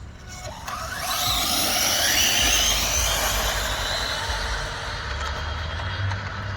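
Two high-speed electric RC cars, a Traxxas XO-1 and an Arrma Felony, launching on a drag pass. Their brushless motors' whine rises steeply in pitch along with a rush of tyre noise, loudest about two seconds in, then fades as the cars get farther away.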